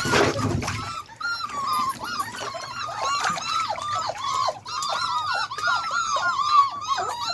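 A litter of beagle puppies whining and yelping together, many short high-pitched cries overlapping without a break.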